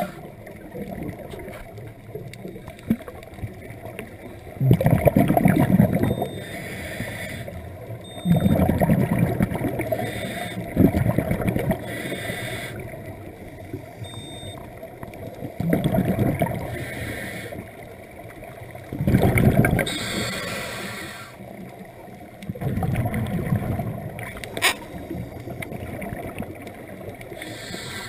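Scuba diver breathing through a regulator underwater: a rush of exhaled bubbles about every three to four seconds, with quieter inhalations between.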